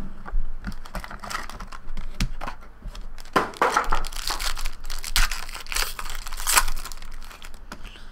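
Wrappers on a sealed trading-card box and its foil pack crinkling and tearing as they are opened, in irregular rustles and short rips.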